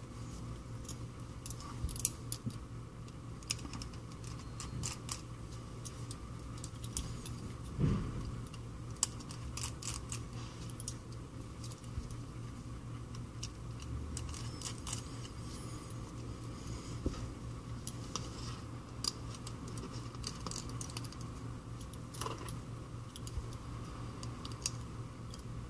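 Scattered small metallic clicks and ticks of a precision screwdriver and tiny screws being worked out of an iPhone's metal shield plate, with one heavier knock about a third of the way in, over a steady low hum.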